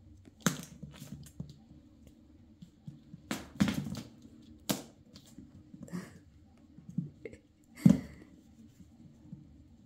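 Bengal kittens pouncing and scampering on a wooden board floor while chasing a feather wand toy: a string of irregular thumps and knocks from paws and bodies landing, the loudest near the end.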